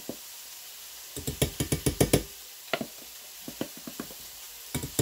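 Metal measuring spoon tapping and clinking against a stainless steel mixing bowl and a plastic jar while scooping and shaking out cheese powder: a quick run of sharp taps about a second in, a few single clicks in the middle, and another quick run near the end.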